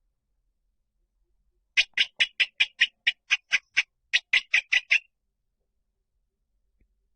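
Bird call of the kind played as a hunting lure: a quick series of about fifteen sharp notes, roughly five a second, in three runs lasting about three seconds, then silence.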